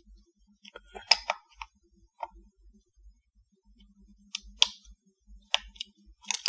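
Scattered sharp clicks and taps from working a computer, about eight in all, some in quick pairs, the loudest about a second in and near the end.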